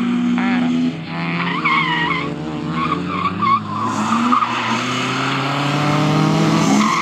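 BMW E36 320's straight-six engine under hard driving, revs dropping about a second in, then tyres squealing as the car slides through a tight corner, with the revs rising again near the end.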